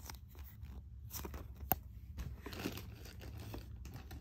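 Small fidget toys being handled and shuffled: scattered soft clicks and crinkly rustling, with one sharp click a little under two seconds in.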